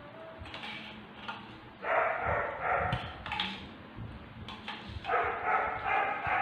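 A dog barking in two quick runs of barks, one about two seconds in and another about five seconds in.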